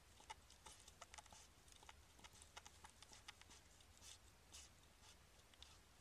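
A hedgehog stirring in its dry straw nest: faint, irregular crackles and rustles of straw, several a second, over a low hum.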